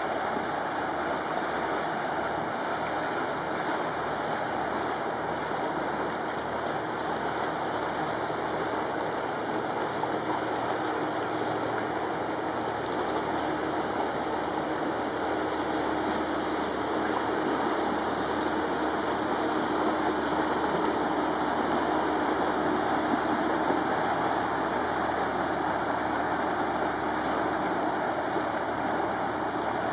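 Water rushing and churning in the bow wave and wash of a passing inland barge combination, with a steady engine drone from the pushing motor vessel under it. It grows a little louder past the middle.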